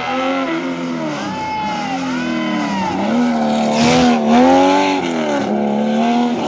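Rally car engine at full throttle, its pitch climbing and dropping again and again with gear changes and lifts. It grows louder to a peak about four seconds in as the car comes past.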